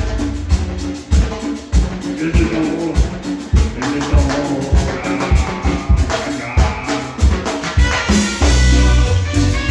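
Cumbia music played by a band: a steady drum beat with keyboard and other instruments, the full band coming in strongly near the end.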